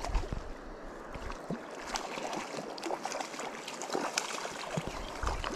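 A hooked cutthroat trout splashing at the surface near the bank as a spinning reel is wound in: a run of irregular small splashes and clicks over a steady river hiss.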